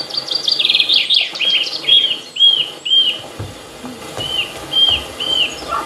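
Birdsong played as a sound effect over the theatre speakers, starting abruptly. A bird gives fast buzzy trills, then a series of short arched whistled notes about twice a second, pausing briefly in the middle before the notes resume.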